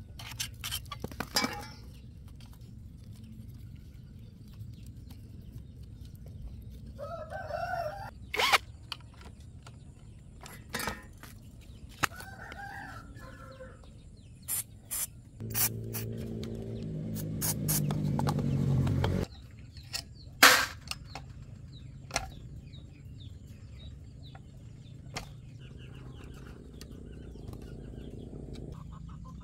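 A rooster crows twice in the background, over scattered sharp clicks and knocks. Midway a low hum rises in pitch and loudness for about four seconds, then cuts off suddenly.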